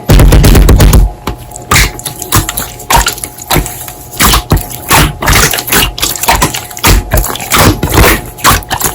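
Hands squishing and poking slime: a quick, irregular run of sticky wet clicks and pops, with a loud low rumble in the first second.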